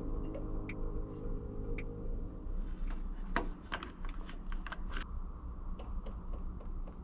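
Eberspacher Airtronic 3 diesel air heater starting up: a low steady hum with a run of sharp clicks, which settle into an even ticking of about three a second near the end.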